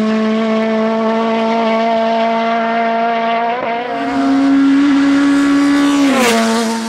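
Race car engine running at high, steady revs, its note stepping up in pitch about four seconds in and dropping back near the end.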